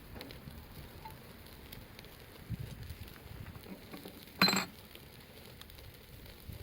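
Campfire burning with faint scattered crackles, broken about four and a half seconds in by one sharp, ringing clink of cookware.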